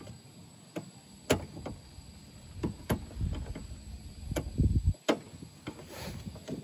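Several sharp plastic clicks and knocks as a car's side marker lamp and its wiring are handled and worked loose, with fabric rustling close to the microphone in the middle of the stretch.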